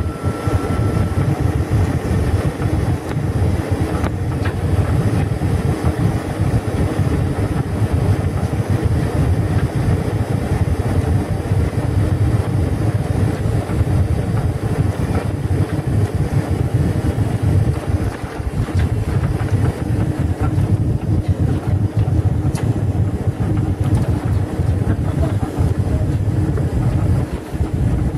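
Boeing 747-400 heard from inside the passenger cabin during the final seconds of approach and landing: a steady low rumble of engines and airflow. A thin high tone stops about a second in, and in the second half light knocks and rattles join the rumble as the aircraft runs along the runway.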